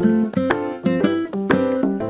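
Background music: light plucked-string and keyboard tune with notes struck about twice a second.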